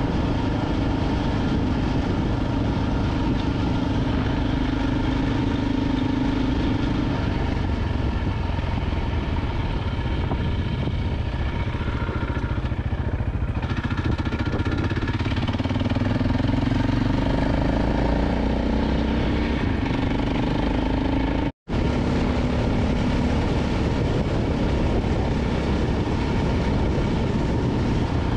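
KTM LC4 single-cylinder enduro motorcycle running at road speed, its engine note over a steady rush of wind noise. The engine tone eases off through the middle and picks up again. The sound drops out for a split second about two-thirds of the way through.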